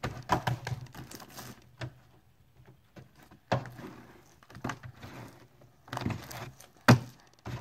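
Sticky slime being worked by hand: scattered wet clicks and pops with quiet gaps between, the loudest about seven seconds in.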